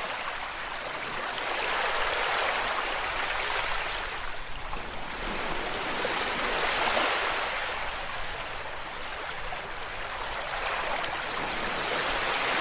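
Ocean waves washing ashore, a steady hiss of surf that swells and fades roughly every five seconds.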